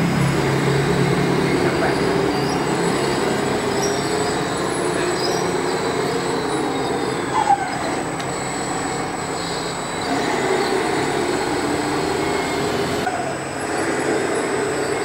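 Radio-controlled scale construction machines running: their electric motors and gearing whir steadily with a wavering whine. A brief sharp sound comes about seven and a half seconds in.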